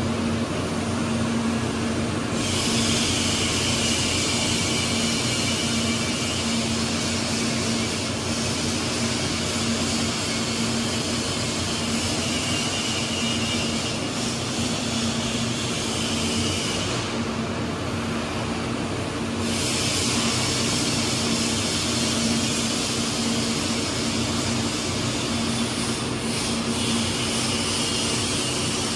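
Steady machinery hum with a constant low tone, and a hissing rush of air or fan noise that starts about two seconds in, drops out for a couple of seconds past the middle, then comes back.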